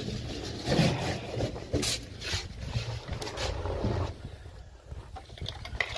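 Scuffing, scraping and rustling of a person clambering through a narrow opening, coming in irregular bursts.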